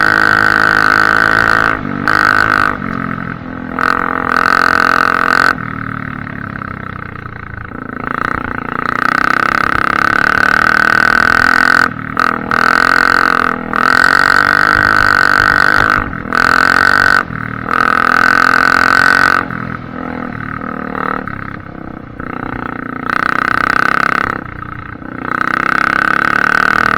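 Honda CRF250F four-stroke single-cylinder dirt bike engine running with the exhaust baffle removed, ridden at speed. The loud open-throttle spells repeatedly drop away to quieter stretches and come back, with the engine note sliding down and up in pitch as the rider rolls off and back on the throttle.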